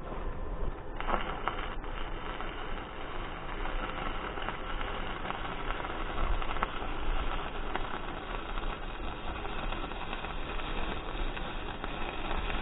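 A steady crackling hiss of arc welding that starts about a second in, over a low steady rumble.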